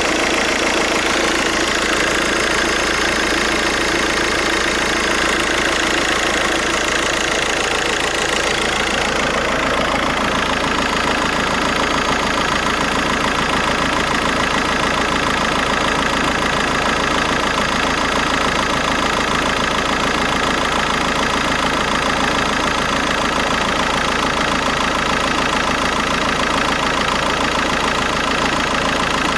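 VW Golf 5's 1.9 TDI four-cylinder diesel engine idling steadily, on a car with a bad alternator.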